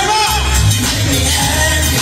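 Live R&B vocal group performance: male singing over heavy bass, played loud through the hall's sound system.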